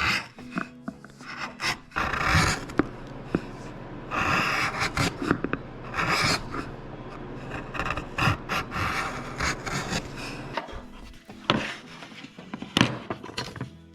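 A hand tool scraping and cutting into wood in irregular strokes, some short and some a second or so long, with sharp clicks between them: wood being carved by hand.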